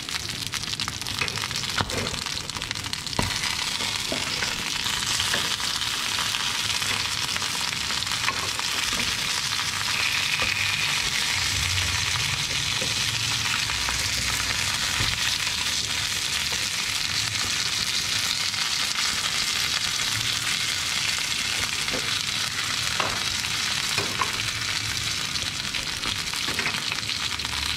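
Fish pieces sizzling steadily as they shallow-fry in a little oil in a frying pan. A few light knocks of wooden chopsticks against the pan come as the pieces are turned.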